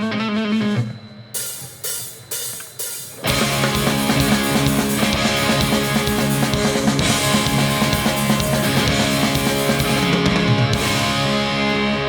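Live hardcore punk band starting a song: a guitar alone, then four loud full-band hits about half a second apart, then the whole band kicks in with distorted guitars and drums about three seconds in.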